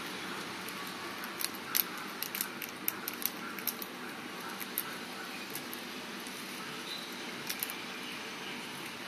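Sparse, irregular little clicks of budgerigars' beaks nibbling guava leaves, over a steady background hiss.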